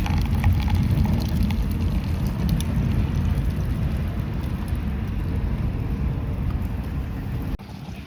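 Low rumbling wind noise buffeting the microphone, with a few faint ticks; it drops away sharply near the end.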